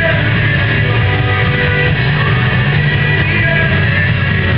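Recorded rock-style music with guitar, playing steadily.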